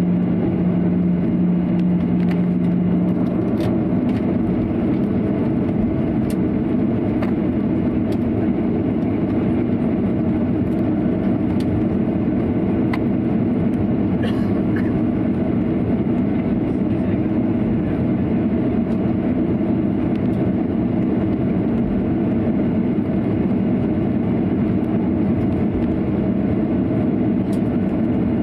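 Cabin noise of a Boeing 737-800 taxiing: a steady rumble from its CFM56-7B engines at low power and the airframe rolling over the taxiway, heard from a window seat over the wing. A steady low hum underneath stops about three seconds in.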